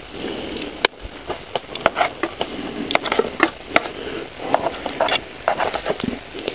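Irregular clicks, taps and light clatter of cooking gear being handled.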